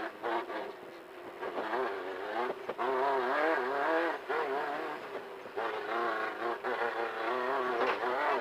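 Desert off-road race car's engine under hard throttle, its pitch rising and falling as the driver accelerates and lifts. It eases off about a second in and again around five seconds in.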